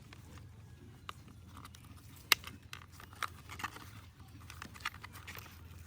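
Plastic toy parts being handled and fitted together: a few sharp clicks, the loudest about two seconds in, with lighter ticks and rustling between them over a steady low hum.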